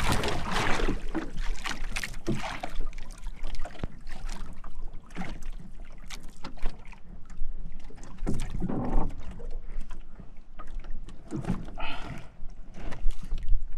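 Handling noise aboard a small outrigger fishing boat: irregular knocks and clatter over a steady low rumble.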